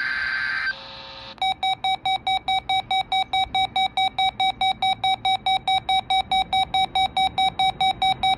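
The end of a NOAA Weather Radio SAME data burst, a buzzy digital squawk, cuts off just under a second in. After a short pause a weather alert receiver starts beeping rapidly, about four beeps a second, alarming for the Required Weekly Test.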